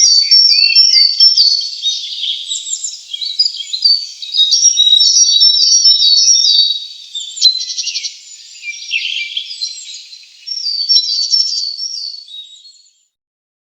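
Songbirds chirping and singing in quick, overlapping phrases of short repeated notes, which fade out to silence near the end.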